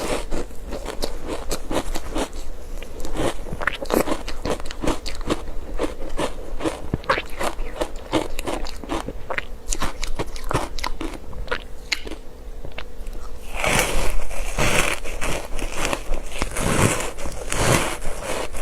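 Close-miked crunching and chewing of ice pieces coated in matcha powder: a quick run of sharp cracks, then a few louder, fuller crunches near the end.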